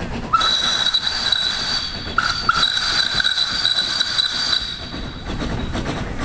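Steam whistle of the Coffee Pot steam railcar blowing one steady blast of about four seconds, faltering twice near the middle, over the engine working as it pulls away.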